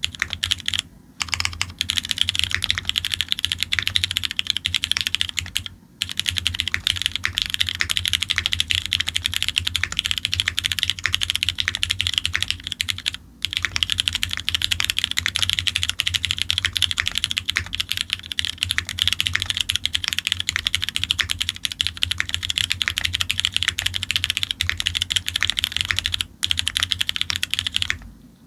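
Fast, continuous typing on a custom mechanical keyboard with lubed Cherry MX Black linear switches on an aluminium plate in an F1-8X case: dense key clacks with a few brief pauses.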